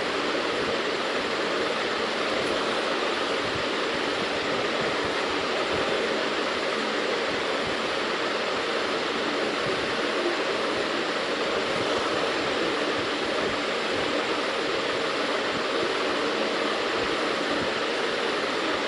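A steady, even rushing hiss, with no separate sounds standing out from it.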